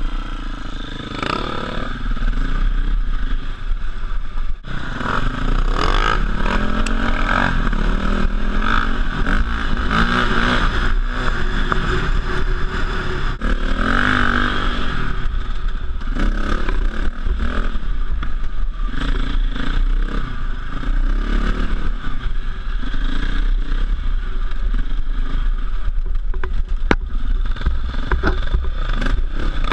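KTM 450 EXC single-cylinder four-stroke dirt bike engine heard from the rider's helmet, revving up and down again and again as it is ridden over rough forest trail. Scattered knocks and clatter from the bike over the ruts, over a constant low rumble.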